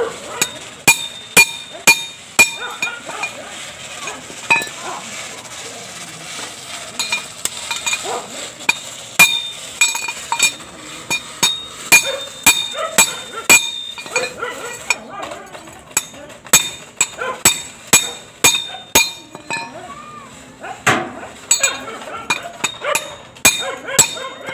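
Hammer striking a metal piece held in locking pliers: a long series of sharp metallic blows, each ringing briefly, coming in quick runs with short pauses between.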